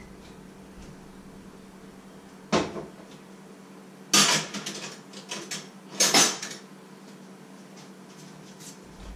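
Pots, pans and dishes being handled at a kitchen stove: a single knock about two and a half seconds in, then two louder bursts of clanking about four and six seconds in, with lighter clicks between.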